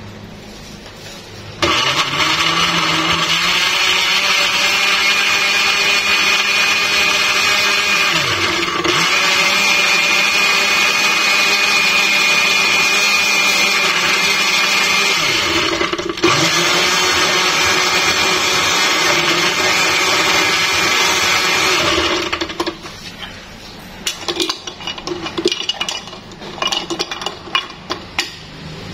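Countertop blender motor whirring steadily as it blends fruit, milk and ice into a shake; it starts about two seconds in, dips briefly twice, and stops after about twenty seconds. Then a spoon clinks and scrapes against the glass jar in a series of light knocks.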